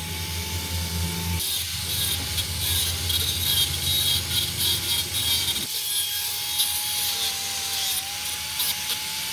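Angle grinder with a thin cut-off disc running at a steady whine while cutting through rusted sheet steel of a truck cab panel, the disc grating on the metal, its pitch sagging slightly under load.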